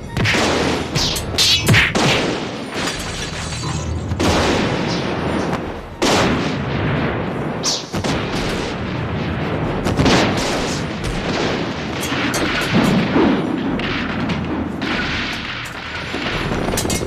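Fight-scene sound effects: a run of explosive booms and blasts every couple of seconds, with sharp hits between them, over a dense rushing noise.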